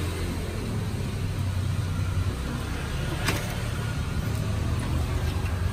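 Steady low rumble of a motor vehicle engine running close by, with one sharp click about three seconds in.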